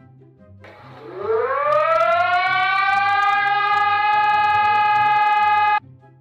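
Public-warning siren winding up from a low pitch to a steady high tone over about a second, holding it for about four seconds, then cutting off abruptly.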